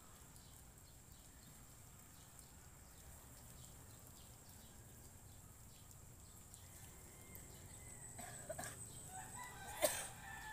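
Chicken calling a few times in short, loud clucks in the last two seconds, after a long stretch of faint background with a thin, steady high-pitched whine.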